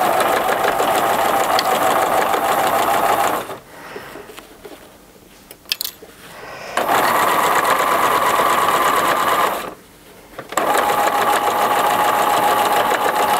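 Pfaff electric sewing machine stitching a seam through layered fabric with its zipper foot. It runs in three spells, stopping briefly about three and a half seconds in and again about ten seconds in. The middle spell runs at a slightly higher pitch.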